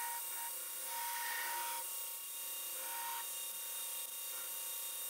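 2x72 belt grinder with a small-wheel attachment grinding the profile of a steel knife blank, a steady rasping hiss. A higher tone in the grinding drops out about three seconds in, when the blank comes off the wheel.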